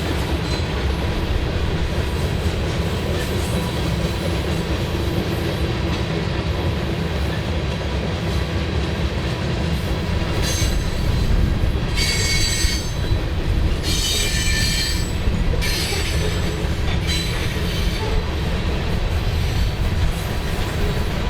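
Freight cars of a manifest train rolling past with a steady low rumble of steel wheels on rail. From about halfway through come several short bursts of high-pitched wheel squeal.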